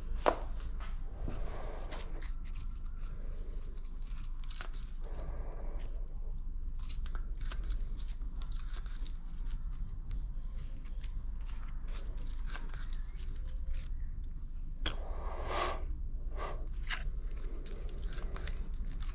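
Light clicks, scrapes and rustles of hand work on a cylinder head while tappet clearances are checked, with a denser burst of scraping about 15 seconds in. A steady low hum runs underneath.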